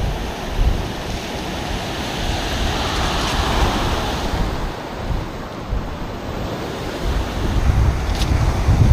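Surf breaking and washing on the beach, with wind rumbling on the microphone. The wash swells up and fades about three seconds in.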